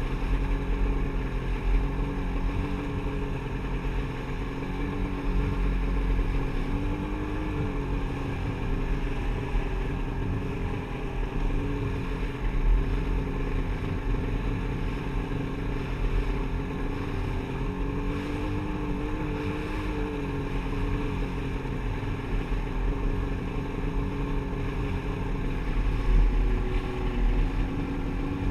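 Jet ski engine running at a steady cruising speed, its drone drifting slightly up and down in pitch, with water rushing along the hull and wind on the microphone.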